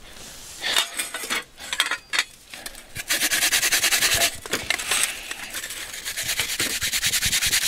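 A peeled onion being grated on a metal grater over a stainless steel bowl: quick, even rasping strokes that start about three seconds in. Before that come a few light knocks as the grater and bowl are handled.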